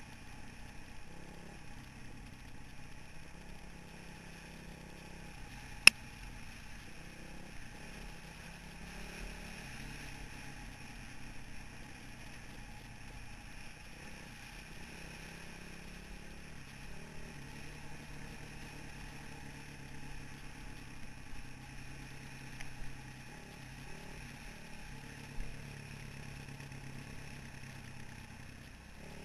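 2003 Honda CRF450R's single-cylinder four-stroke engine running at light, easy throttle, its pitch stepping up and down as the rider rolls the throttle and shifts. A single sharp knock about six seconds in is the loudest sound, with a few lighter knocks near the end.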